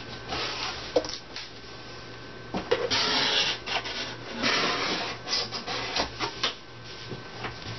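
Cardboard box flaps being pulled open, a few irregular scraping and rustling stretches of cardboard rubbing on cardboard with some sharp clicks; the loudest scrape comes about three seconds in.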